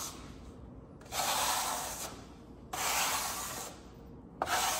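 Stainless steel trowel scraping across wet Marmorino lime plaster in long strokes, the sand grain rasping under the blade as it is pressed down and compacted, forcing the cream to the surface. Three strokes, each about a second long, the third starting near the end.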